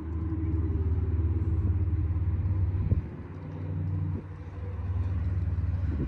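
Carrier Comfort 25HCE 3-ton heat pump outdoor unit running in heat mode, its LG scroll compressor and outdoor fan giving a low, steady hum. The hum swells and dips a few times, with brief drops about three and four seconds in.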